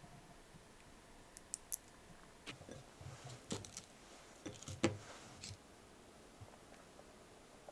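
Scattered light clicks and taps of food being handled around a small glass bowl: apple pieces set into yogurt and a spoon touching glass. The taps come in small clusters, and the loudest is about five seconds in.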